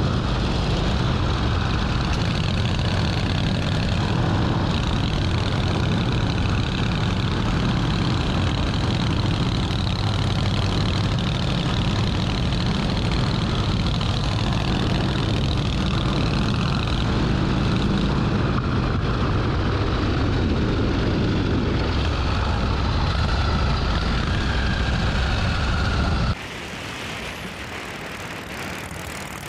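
1948 Harley-Davidson Panhead V-twin engine running steadily as the chopper is ridden. The level drops abruptly to a quieter engine sound about 26 seconds in.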